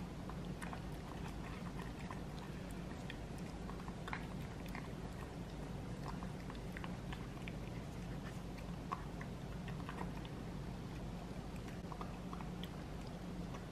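Toy poodle puppy eating soft, wet food from a bowl: faint, irregular wet chewing and lapping clicks, over a steady low hum.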